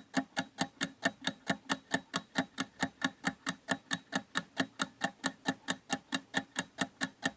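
Rapid, even ticking, about five or six ticks a second, like a clock or click track, standing alone where the music drops out.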